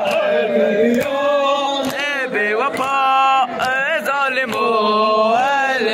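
A man chanting a noha, a Shia lament, into a handheld microphone: one male voice in long held notes that bend up and down, with sharp beats recurring about every half second to second.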